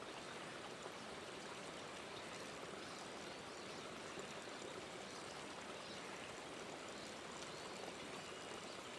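Faint, steady rush of a small mountain creek of snowmelt water running.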